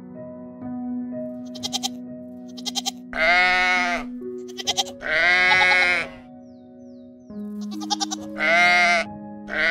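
Three long, quavering livestock bleats of about a second each, with a fourth starting near the end, over steady background music. Quick rattles of clicks come just before the bleats.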